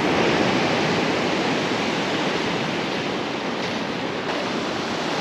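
Small stream, swollen by rain, rushing steadily.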